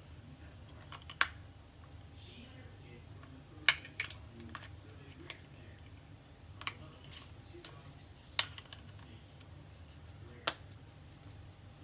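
Handling of an earbud charging case and its leather cover, with about six sharp clicks a second or two apart as the parts snap and press together.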